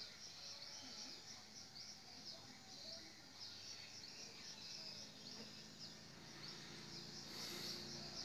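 Faint, steady chirping of night insects, a run of short high chirps repeating about three times a second. A low hum starts to build near the end.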